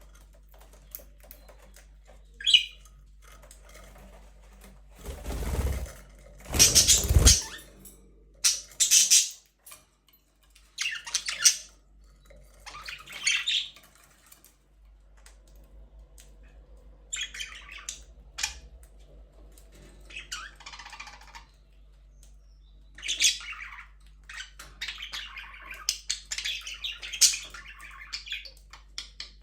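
Budgerigars chirping and squawking in short, scattered calls, with a louder rustling burst about five to seven seconds in.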